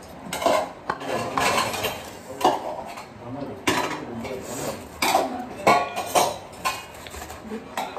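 Kitchen knife knocking on a plastic cutting board while slicing onions, in irregular sharp taps about once a second.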